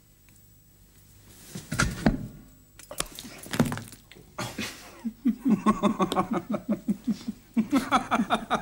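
A couple of dull knocks, then a man laughing heartily: a fast run of 'ha-ha-ha' about five or six a second, starting about five seconds in and breaking off briefly before picking up again.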